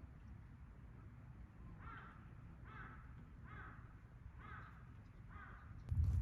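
A bird calling five times in short, evenly spaced harsh calls, under a second apart, over a low steady rumble. A much louder noise breaks in at the very end.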